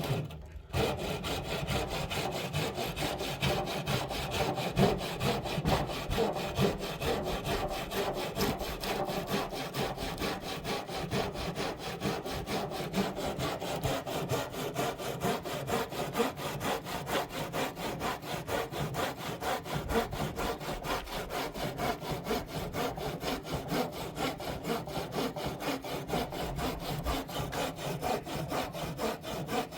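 Hand saw cutting through a wooden roof beam with steady, even back-and-forth strokes.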